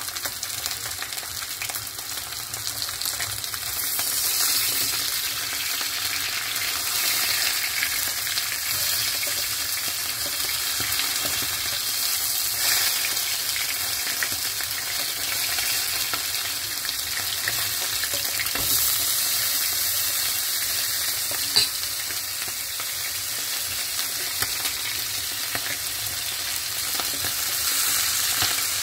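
Chicken leg quarters sizzling steadily in hot oil in a skillet, with a fork scraping against the pan as the pieces are turned. A single sharp click sounds about three-quarters of the way through.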